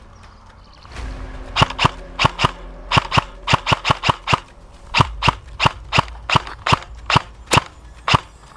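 Airsoft gun firing single shots, about twenty sharp snaps in all, many in quick pairs, over roughly six seconds.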